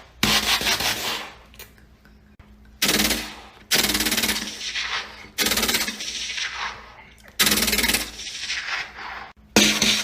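A person imitating gunfire with the mouth: about six separate bursts of sharp, rattling noise, each starting suddenly and lasting a second or so, with short pauses between them.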